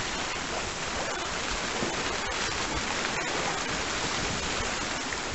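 Steady rushing of wind and water around a sailing yacht under way in the rain.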